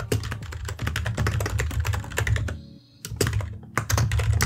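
Fast typing on a computer keyboard: a quick run of key clicks, each with a dull thud, with a short pause a little past halfway.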